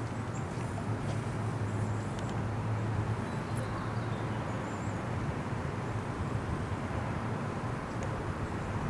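Steady low rumble of outdoor city background noise, with a low drone that is strongest in the first few seconds.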